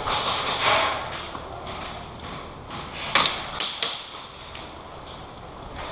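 Airsoft gun fired in the field: a sharp snap about three seconds in, then two smaller snaps soon after, over rustling movement.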